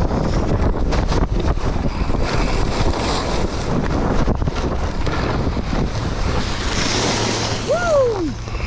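Wind rushing over an action camera's microphone and skis scraping and chattering over snow during a downhill ski run. Near the end a short pitched sound slides down in pitch.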